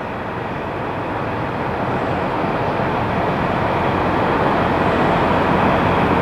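Steady vehicle engine rumble mixed with road-like noise, slowly getting louder.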